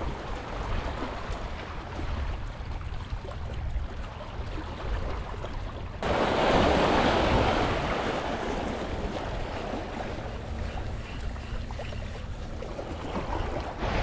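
Wind rumbling on the microphone over the wash of sea waves at the shore. About six seconds in, the wash turns suddenly louder and then slowly eases.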